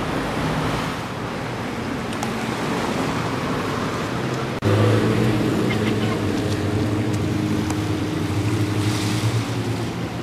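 Street traffic noise, then after an abrupt cut about four and a half seconds in, a steady low engine hum over surf at the waterfront.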